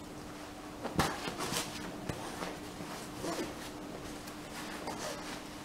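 A 70-denier nylon compression sack being handled by hand: the fabric and strap webbing rustle and scrape in short bursts, with one sharp click about a second in.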